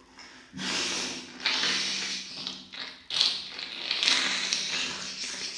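A woman blowing her nose hard several times in a row, thick, snotty and wet-crackly. It comes as about four long blows of a second or so each.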